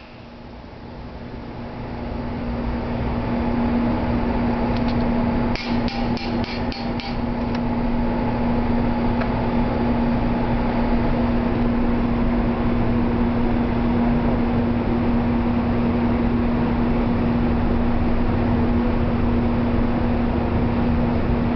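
Plasma cutter running: a steady electrical buzz over hissing noise that builds up over the first few seconds, with a quick run of sharp clicks about six seconds in.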